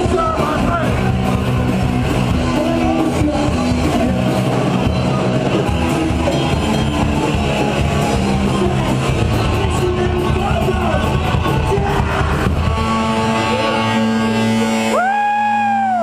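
Live rock band playing loud, with drums, electric guitar and vocals. About twelve seconds in the drums stop, leaving held guitar notes ringing, and a high sustained note slides in near the end.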